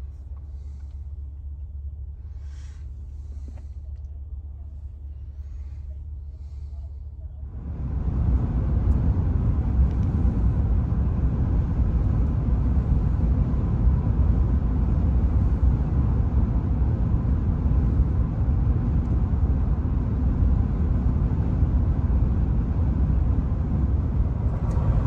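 Road noise inside the cabin of a Ford F-150 Lightning electric pickup on the move: a low rumble at first, then about eight seconds in a sudden jump to much louder, steady tyre and wind noise, as at highway speed.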